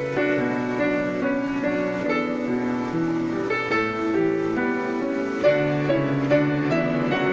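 Piano music: a melody moving over held chords.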